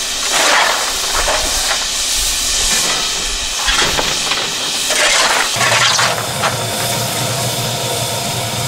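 Narrow-gauge steam locomotive hissing steam, a steady hiss with several louder surges.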